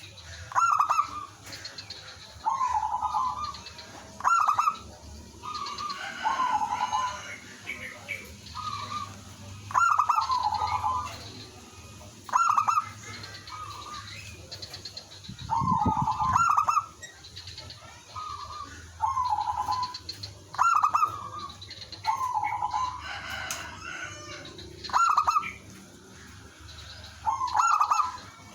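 Zebra doves cooing: short rippling coo phrases repeat every two to three seconds, with several birds calling back and forth. A dull low bump comes about halfway through.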